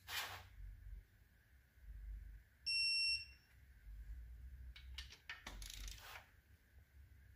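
Snap-on electronic torque wrench giving one high beep, about half a second long, about three seconds in: the signal that the head-stud nut has reached the set torque of 25 ft-lb. Short metallic clicks and rattles come before and after it as the wrench and socket are handled.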